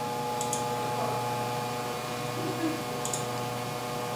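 Computer mouse clicking twice, about half a second in and again around three seconds in, over a steady electrical hum with several fixed tones.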